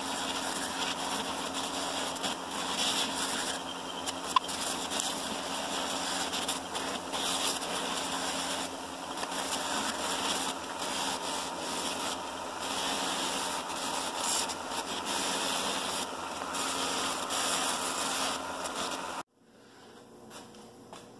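Bench buffing machine running, its cloth buffing wheels spinning with a steady whirring hum while a bar of white diamond polishing compound is pressed against the left wheel. The sound cuts off abruptly near the end.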